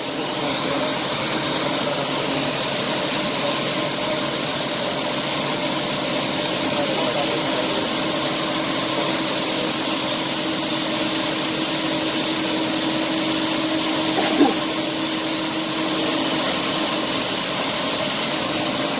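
Claas combine running while it unloads grain through its unloading auger into a grain cart: a steady engine and machinery drone with the hiss of grain pouring out of the auger spout.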